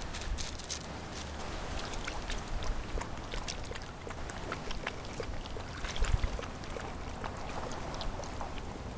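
Wind rumbling on the microphone, with irregular small clicks and splashes of water lapping at the lake shore, and a louder cluster of them about six seconds in.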